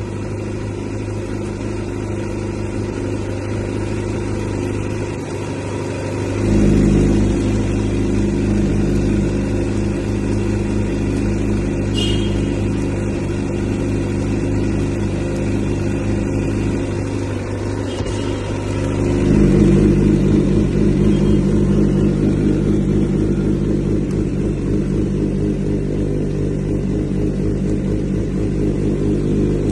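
Suzuki GSX-R600's inline-four engine running steadily, growing louder and fuller about six seconds in and again about twenty seconds in.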